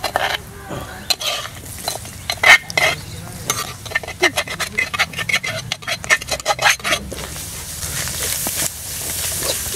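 Boiled clam meat tipped into hot masala in a metal wok and stirred in with a steel spoon: the spoon scrapes and clinks against the pan again and again, then a steady sizzle of the clams frying takes over for the last few seconds.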